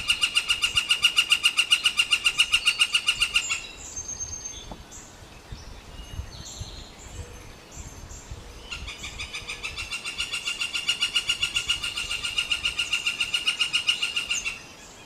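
Northern flicker giving its long call, a rapid even series of loud, ringing notes. It stops after about three and a half seconds, a few faint chirps follow, and then a second long series starts, grows louder and cuts off near the end.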